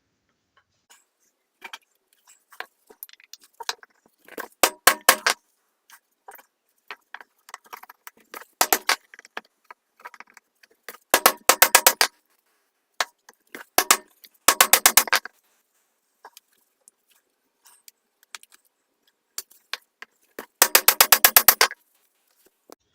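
Rapid runs of metal-on-metal hammer taps, driving a metal wedge out of the eye of an old hammer head to free the wooden handle. The taps come in short bursts of several quick strikes with pauses between, the longest and loudest burst about a second long near the end.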